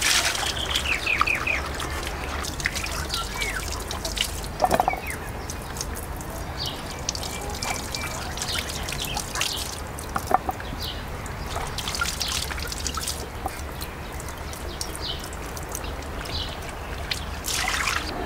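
Water trickling steadily, with short bird chirps now and then.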